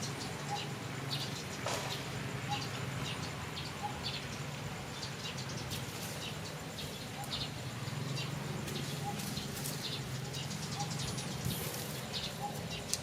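Short high chirps and peeps from small animals, scattered irregularly and a few of them quick little glides in pitch, over a low steady hum.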